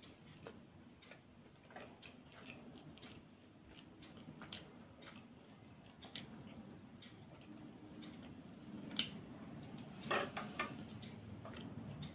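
A person quietly chewing and smacking while eating by hand, with scattered small clicks and a brief cluster of sharper ones about ten seconds in.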